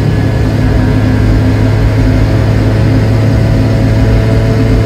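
Piaggio Ape 50's small two-stroke single-cylinder engine running at a steady cruising speed, with an even, unchanging engine note heard from inside the cab.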